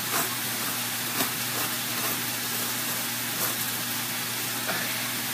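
A fork scraping through roasted spaghetti squash, pulling the flesh into strands: a few faint scrapes over a steady hiss and a low hum.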